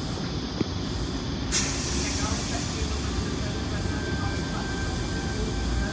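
Tangara electric train pulling out, with a low rumble. About a second and a half in, a sudden loud hiss of released air starts and slowly fades. A faint steady high tone comes in partway through.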